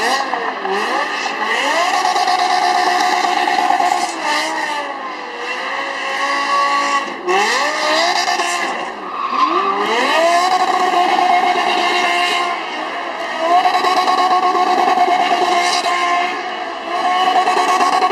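Racing car engine at high revs, climbing in pitch through the gears with quick upshifts, then holding a steady high-pitched note at full throttle.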